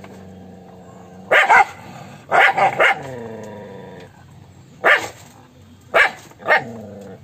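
Angry dog barking through a wire cage at another dog: about eight loud, sharp barks in short clusters of one to three, with a low steady growl held in between.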